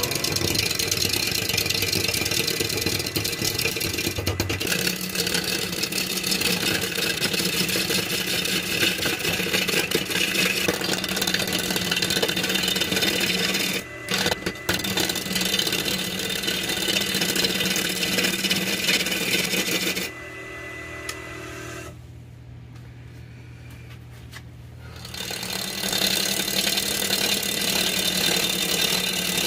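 A gouge cuts a spinning maple burl blank on a Rikon wood lathe: a dense, rough scraping over the lathe motor's hum. About two-thirds of the way through the cutting stops for several seconds, leaving the quieter hum of the running lathe, then starts again.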